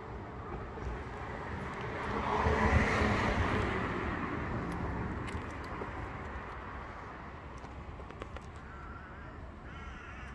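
A car passing by, its noise swelling to a peak about three seconds in and then fading away over the next few seconds.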